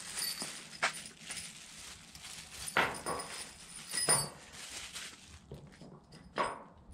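A clear plastic parts bag crinkling while bolts are taken out and handled on a workbench, with four sharp clinks and knocks, the loudest about four seconds in.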